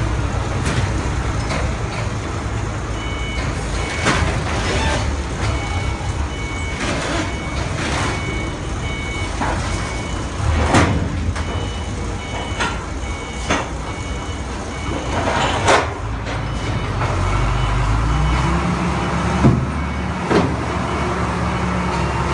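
A vehicle engine running steadily, with a two-tone reversing alarm beeping about once a second until about two-thirds of the way through. Several sharp knocks and bangs come and go throughout.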